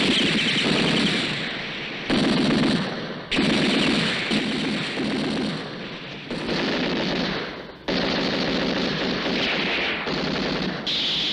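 Sustained automatic gunfire from machine guns and submachine guns in a film battle soundtrack. The fire comes in long runs, and the sound changes abruptly several times where the film cuts between shots.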